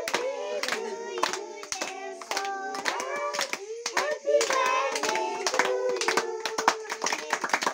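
A group of children and adults singing a birthday song together while clapping their hands in a steady rhythm, with one long held note near the end.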